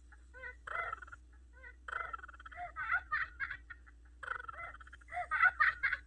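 High-pitched cackling laughter in rapid bursts, loudest near the end.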